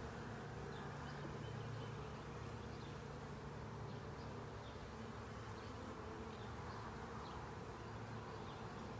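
Honeybees buzzing steadily around an open hive box, a continuous low hum.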